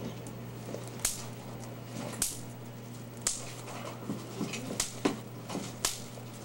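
Bubble wrap being popped by hand: about six sharp, separate pops a second or so apart, with faint plastic crinkling between them.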